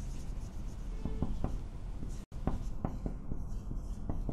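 Marker pen writing on a whiteboard: a run of short, quick scratchy strokes as letters are formed.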